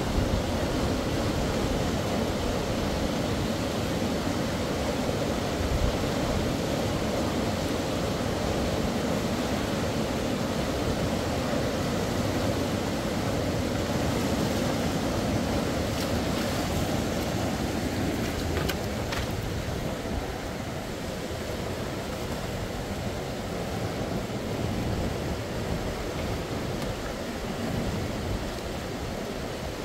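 Steady rushing of river water: a dense, even noise heaviest in the low range, easing slightly about two-thirds of the way through.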